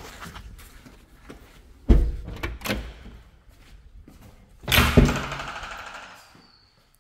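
Wooden front door being unlatched with its metal lever handle and pushed open: a sharp thunk about two seconds in, a second knock shortly after, then a louder clatter near five seconds that rings on in the echoing, bare room.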